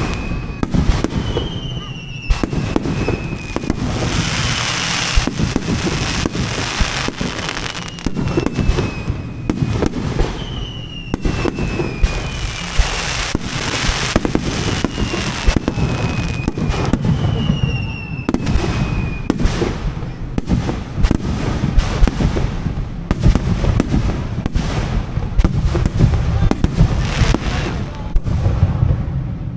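Aerial fireworks bursting in rapid succession, a dense run of bangs and crackles, with several falling whistles in the first two-thirds.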